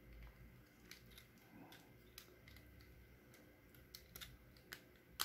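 Faint, scattered clicks of the plastic parts of an Aoyi Mech Optimus Prime transforming figure being handled and shifted, with a sharper click near the end.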